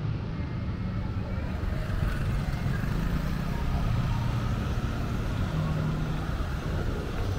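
City street traffic: motorcycle and scooter engines and cars running and passing, a steady low rumble.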